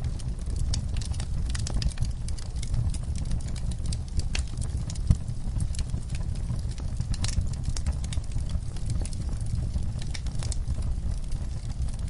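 Wood fire burning in a fireplace: logs crackling with many irregular sharp pops over a steady low rumble of flame. One louder pop comes about five seconds in.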